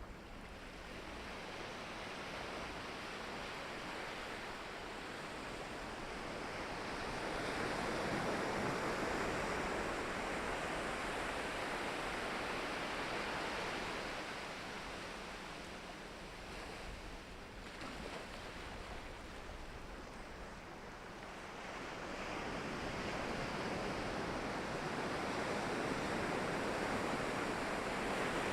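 Ocean waves breaking and washing in on the shore, the surf swelling and easing in slow surges a few seconds apart.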